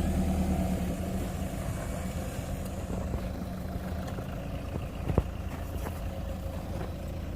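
Toyota Land Cruiser LC150 engine running steadily at a low, even note. A single sharp click sounds about five seconds in.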